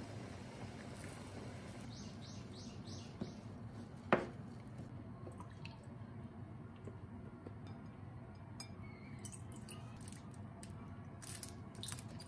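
Quiet kitchen prep over a steady low hum. About two seconds in, a quick run of five short scrapes as a knife scrapes mentaiko out of its skin inside plastic wrap. A sharp knock follows about four seconds in. Near the end come light clinks of a metal measuring spoon at a glass bowl as milk and soy sauce are poured in.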